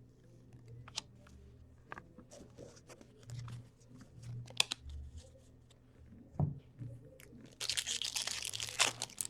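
Scattered light clicks and taps as trading cards are handled. Then, about seven and a half seconds in, a card pack's wrapper is torn open with a loud crinkly tearing lasting about a second and a half.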